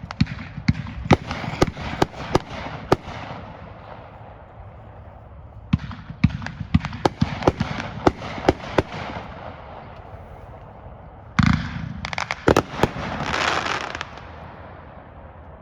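Summer Inferno consumer firework going off in rapid volleys of sharp bangs: one flurry over the first three seconds and another from about six to nine seconds. About eleven seconds in comes a louder burst with a few more bangs, then a couple of seconds of dense hiss.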